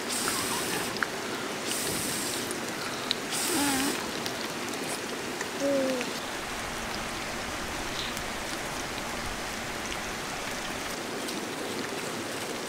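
River water rushing steadily, with three short hissing bursts in the first few seconds and two brief pitched sounds around four and six seconds in.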